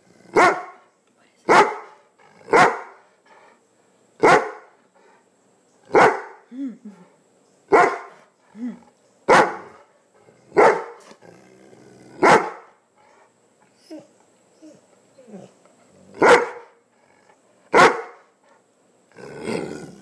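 Greater Swiss Mountain Dog barking: single loud, deep barks about every one and a half seconds, with a few seconds' lull and a couple of softer low sounds before two more barks near the end. Demand barking, a protest at being refused food.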